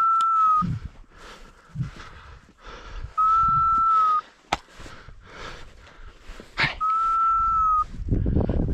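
A dog whistle blown three times, each a level, steady blast of about a second, a few seconds apart: a handler's signal to English pointer bird dogs. Crunching footsteps in snow come between the blasts, with one sharp click about halfway through.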